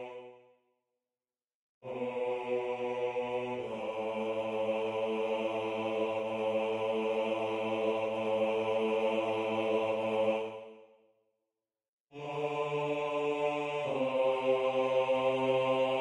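Computer playback of a choral bass line in a synthetic sung-vowel voice, low and slow. After a short rest come a short note, then a long held lower note, then a rest, then two more notes, the last one held and getting louder.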